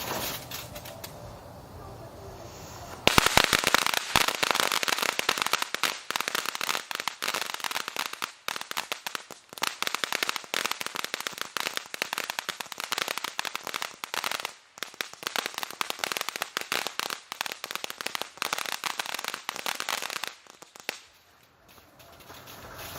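Pink Lightning firework crackling. A dense, rapid crackle starts suddenly about three seconds in, runs for about seventeen seconds, then dies away.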